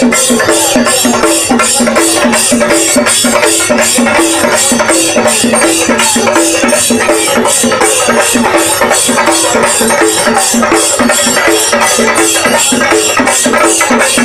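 Chende drum ensemble playing a loud, driving rhythm, sticks beating the cylindrical drums at about four to five strokes a second.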